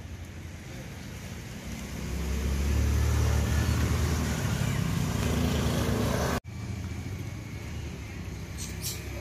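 A vehicle engine running close by. Its low hum swells over about two seconds, then cuts off suddenly a little past the middle, leaving a quieter steady hum.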